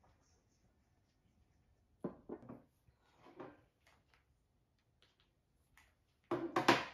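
Quiet household handling sounds in a small room: a few soft knocks and rustles, with the loudest cluster of knocks near the end.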